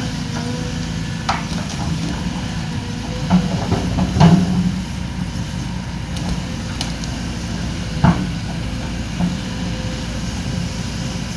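Excavator diesel engine running steadily, with a few sharp metallic knocks from the machine working, the loudest about four seconds in and another about eight seconds in.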